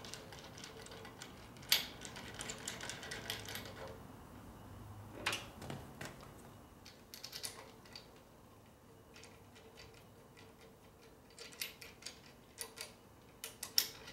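Scattered light metallic clicks and taps of hand tools and handlebar hardware being handled, coming singly and in short clusters, over a faint steady hum.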